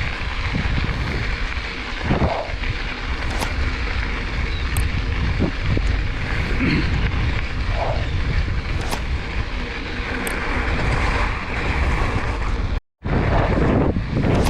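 Mountain bike riding over a trail: tyres rolling over the ground and wind noise on the microphone, with scattered clicks and rattles from the bike. The sound cuts out completely for a moment near the end.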